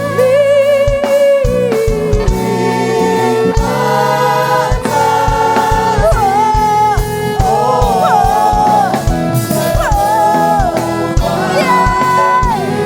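Gospel worship music: voices singing held, sliding melody lines over a band with a steady low beat.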